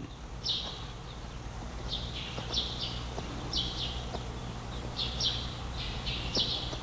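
Small birds chirping: short high chirps repeated irregularly, about one every half second to a second, over a low steady hum.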